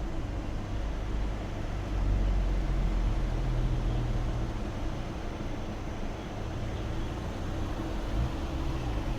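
Outdoor background noise: a steady low rumble with a faint constant hum, a little louder between about two and four seconds in.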